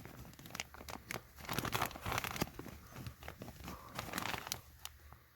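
Plastic vapor-barrier sheeting crinkling and rustling under someone crawling across a crawl-space floor, a dense, irregular run of crackles that is busiest through the middle.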